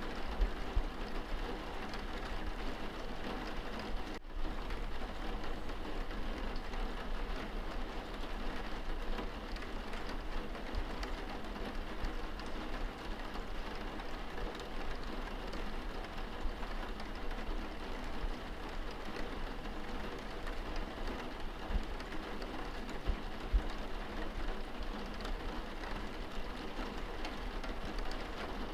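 Steady rain pattering on window glass, heard from inside the room.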